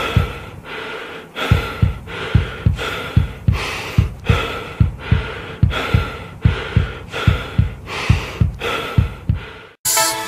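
Heartbeat sound effect: paired low thumps repeating a little faster than once a second, over heavy rhythmic breathing. Both cut off suddenly near the end and electronic music starts.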